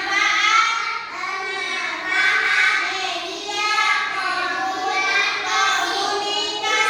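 A child singing, with held notes that bend in pitch.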